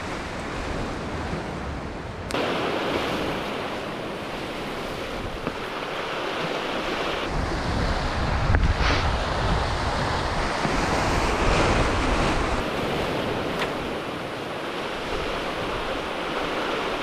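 Sea surf washing over shoreline rocks, with wind buffeting the microphone; the noise grows louder about two seconds in and a low rumble swells in the middle.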